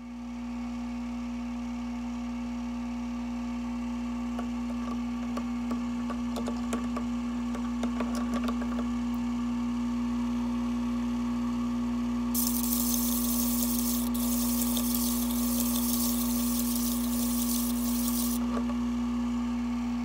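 Faceting machine's lap motor running with a steady hum as a ruby on a dop is ground against the spinning lap, with scattered scratchy ticks in the middle. A steady hiss comes in for several seconds in the second half, then stops.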